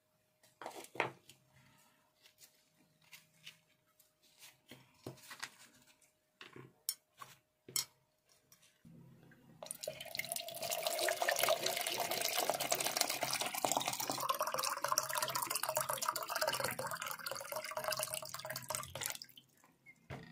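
Water poured from a plastic jug into a plastic tub, a steady splashing for about nine seconds in the second half. Before it come a few light clicks and taps of things being handled and set down.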